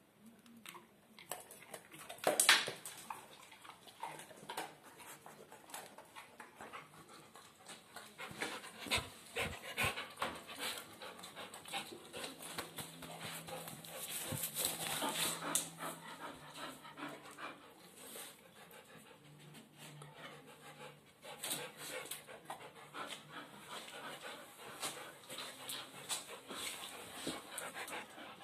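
A bull terrier panting close up, with scattered clicks and handling knocks; the panting is loudest about midway through.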